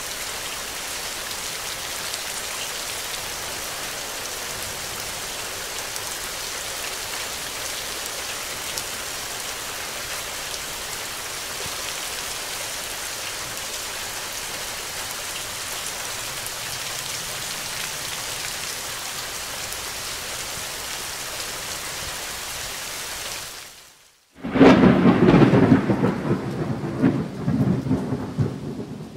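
Steady rain falling, which cuts off about 24 s in. After a brief silence, a loud thunder rumble follows and dies away over about four seconds. It serves as the countdown timer's end-of-time alarm.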